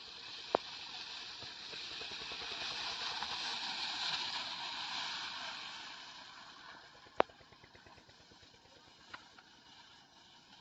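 Distant Maruti Suzuki Swift hatchback driving slowly over a dirt ground. Its engine and tyres give a soft rushing noise that swells over a few seconds and then fades. Two sharp clicks stand out, one just after the start and one about seven seconds in.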